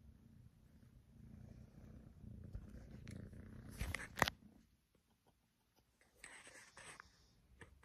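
Kitten purring close to the microphone, a low rumble that builds over the first few seconds and stops after about four and a half seconds. A sharp knock about four seconds in, and a brief rustle a couple of seconds later.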